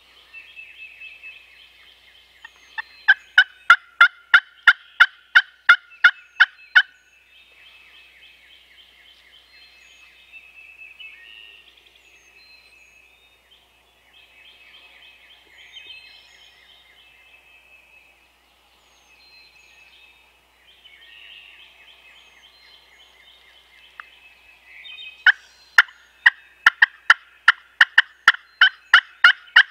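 Bird calls in the woods at dawn, with wild turkeys gobbling. Two loud runs of sharp calls repeated evenly about four times a second, a few seconds in and again near the end, with quieter chattering calls between.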